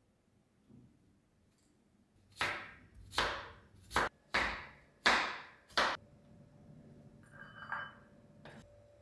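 Chef's knife slicing carrots into thin strips on a wooden cutting board: six cuts, each a sharp hit on the board that trails off briefly, with a few faint knocks after them.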